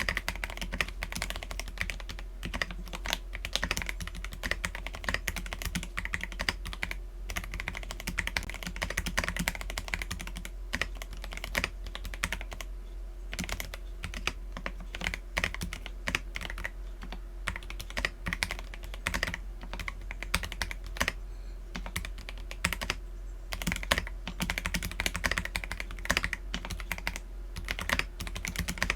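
Continuous fast typing on an Akko PC75B mechanical keyboard with lubed Akko Jelly Black linear switches and PBT Cherry-profile keycaps: a dense, irregular stream of keystroke clacks.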